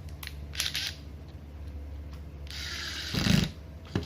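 Parts of a cordless impact driver being handled and fitted together: a few light clicks, then a longer rustling scrape about two and a half seconds in that ends in a heavier knock, and another click near the end.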